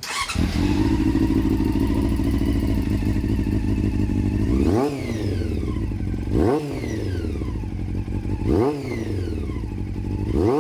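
Honda CB400 Super Four's 400cc inline four-cylinder engine through an aftermarket exhaust, idling steadily and then blipped four times, each rev rising quickly and falling back to idle.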